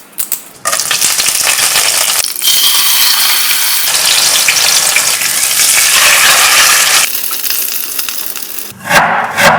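Food sizzling and frying in a hot pan. It starts under a second in, grows louder a couple of seconds later, then dies down, with a few sharp knocks near the end.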